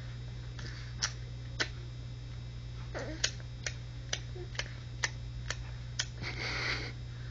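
A series of sharp clicks: two about a second in, then a regular run of about two a second, followed near the end by a short breathy hiss, over a steady low hum.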